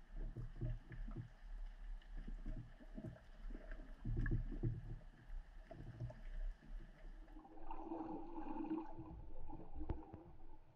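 Muffled underwater sound picked up through a camera's waterproof housing: low, irregular thumps and water swishing. The sound changes abruptly about seven seconds in, turning duller, with a few light clicks.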